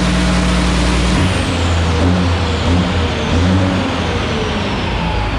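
Caterpillar 6NZ diesel in a truck on a chassis dyno, ending a full-load pull. About a second in, the steady high-rev engine note drops away as the throttle comes off. High whines from the turbo and dyno rollers then fall slowly in pitch as everything spins down.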